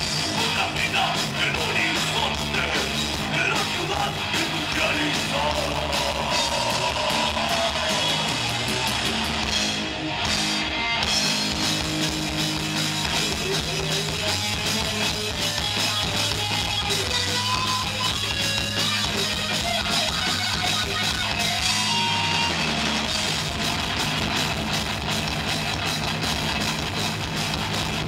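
Live metal band playing a song: electric guitar, bass guitar and drum kit, with a singer's voice in places.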